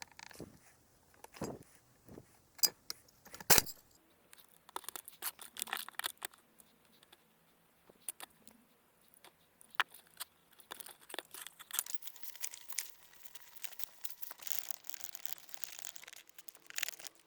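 Hands-on repair noises: sharp clicks and knocks from handling tools and parts, turning into a stretch of rustling and crinkling in the second half.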